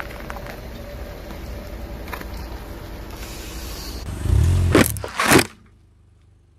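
Car running slowly with a steady low rumble as its tyre rolls forward, then a heavy thud and two sharp pops or cracks about half a second apart as the tyre crushes an object under it. The sound then cuts off.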